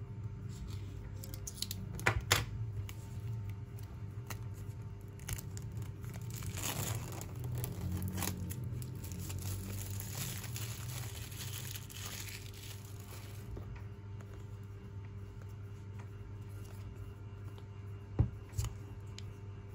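Plastic shrink wrap on a boxed Apple Pencil being cut with a box cutter, with a couple of sharp clicks about two seconds in. The film is then peeled off, tearing and crinkling for several seconds, and two sharp taps come near the end as the box is handled.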